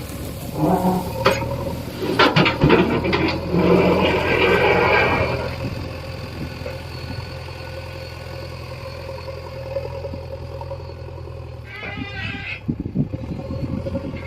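Diesel engine of a JCB 3DX backhoe loader running steadily, with clanks and knocks in the first few seconds as it works. A short, high, wavering squeal comes near the end.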